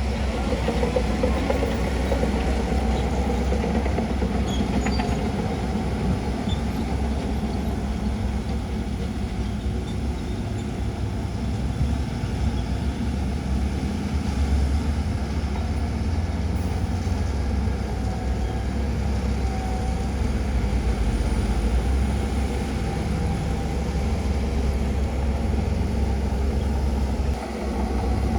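Heavy diesel earthmoving machinery running steadily, a continuous low engine rumble, with a brief dip in level near the end.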